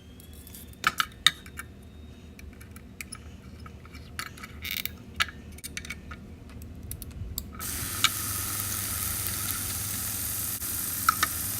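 Small metal objects clinking and rattling in a scatter of sharp clicks. About seven and a half seconds in, a steady high hiss starts abruptly, like a machine being switched on.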